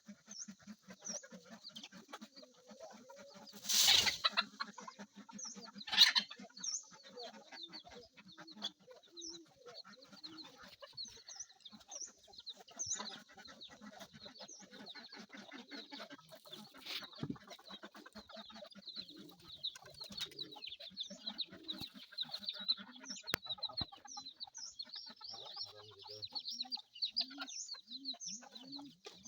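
Hill chickens clucking, with short high chirps repeating throughout and two loud calls about four and six seconds in.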